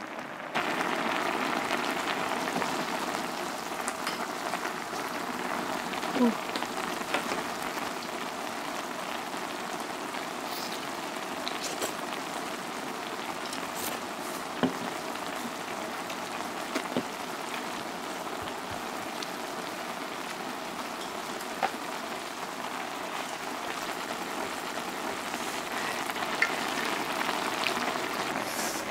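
Budae-jjigae stew boiling in a shallow pot on a portable gas burner: a steady bubbling, sizzling hiss as instant ramen noodles cook in the broth, with a few light clicks.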